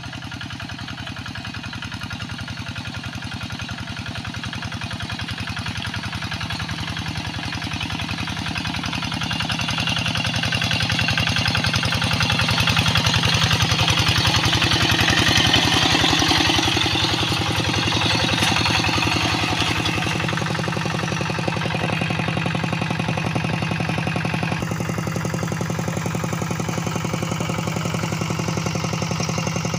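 Single-cylinder diesel engine of a two-wheel hand tractor running steadily under load as its cage wheels work through paddy mud, growing louder about halfway through and then settling back.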